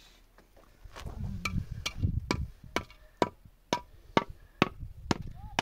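Repeated blows of a short-handled hand tool striking something hard on the ground: sharp, ringing knocks about two a second, starting about a second and a half in.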